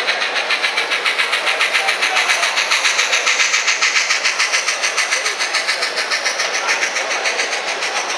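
Rapid, even steam-exhaust chuffing played by the DCC sound decoder through the small speaker of a Bachmann N-scale K4 steam locomotive model, about six or seven chuffs a second, thin and high with no bass.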